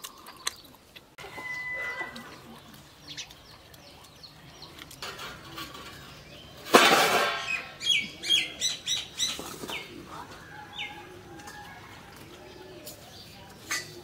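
Birds around a village yard: a sudden loud flurry of wing-flapping with a call about halfway through, followed by a quick run of short high chirps and slow, repeated low coos.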